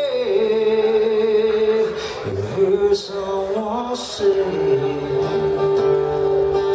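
Male voice singing long held notes over an acoustic guitar; the last note is held steadily for about three seconds.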